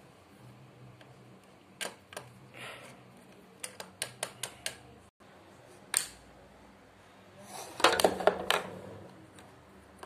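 LEGO plastic bricks being handled, snapped together and set down on a wooden desk, giving sharp clicks and taps. There are a couple of clicks about two seconds in and a quick run of clicks around four seconds. The loudest is a rapid cluster of clicks near the end.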